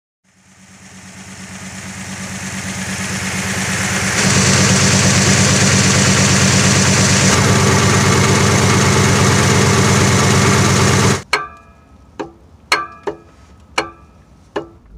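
Jeep Grand Cherokee's 5.2L V8 engine running steadily at idle with an even low pulse, fading in and then cutting off abruptly about eleven seconds in. After it come about six sharp metallic clinks that ring briefly.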